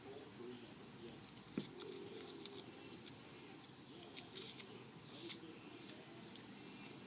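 Scattered light clicks and taps from hands and tools at work, about a dozen sharp ticks spread unevenly over a low steady background.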